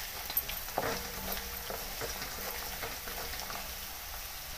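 Onions and fried bombil (Bombay duck) with red chilli powder sizzling in oil in a metal kadhai, stirred with a wooden spatula that scrapes and taps the pan now and then.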